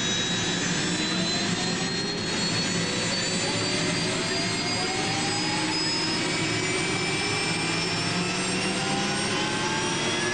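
Aircraft turbine engine running steadily, with several whining tones slowly rising in pitch over a constant rushing noise.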